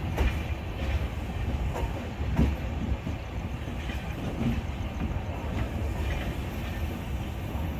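Passenger train moving along the track, heard from on board: a steady low rumble with irregular sharp clicks of the wheels passing over rail joints.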